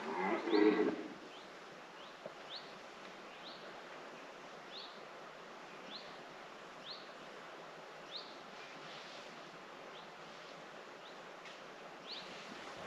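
A small bird calling over and over with a short, rising, high chirp about once a second, over a faint background hiss. About half a second in, a brief, louder low call sounds once.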